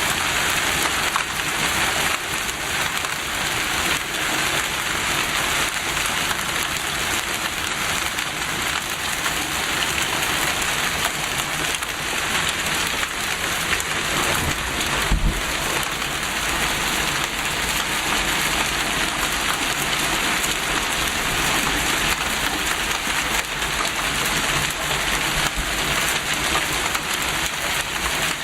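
Marble-sized hail falling hard, a dense, steady pattering on the ground and surfaces, with one low thump about halfway through.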